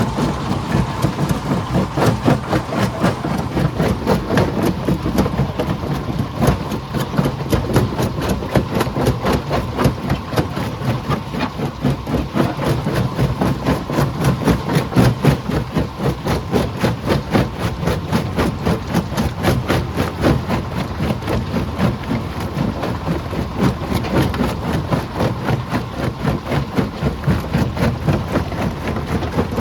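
Heavy rock-crushing machinery running: a steady engine drone under a rapid, continuous clatter of rock.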